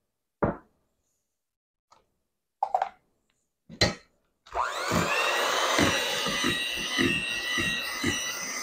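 A few light knocks, then about four and a half seconds in an electric hand mixer starts up: its motor whine rises and settles to a steady pitch as the beaters work cream cheese and powdered sugar in a stainless steel bowl, with an uneven low knocking underneath.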